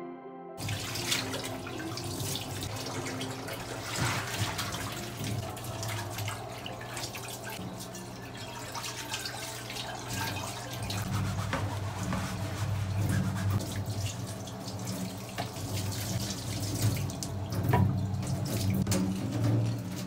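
Kitchen sounds while ramen bowls are topped: a steady rushing noise over a low hum, with many scattered light clicks and clinks of chopsticks against ceramic bowls.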